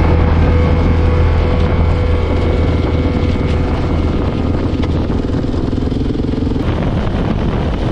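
KTM 690's single-cylinder engine running at a steady pitch as the bike rides along. About six and a half seconds in, the engine tone stops abruptly and gives way to a noisier rush.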